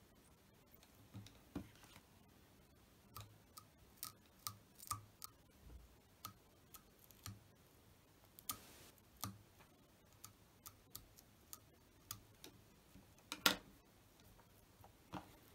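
Scattered small clicks and ticks of fly-tying tools and thread being handled at the vise, at uneven spacing, with one louder click near the end.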